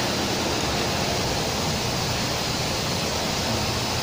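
Large aluminium pan of cabbage and beans boiling on a burner, giving a steady, even rushing noise.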